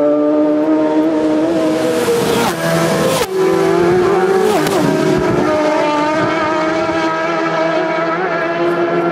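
Several racing motorcycles at high revs passing close in quick succession. The engine pitch drops sharply as one goes by about three seconds in, and again about a second and a half later, while more engines run on steadily as the next bikes approach.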